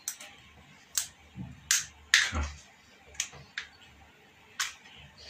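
Pliers clicking and snipping on an electrical cable as the wire and its insulation are cut: about seven sharp, irregularly spaced clicks.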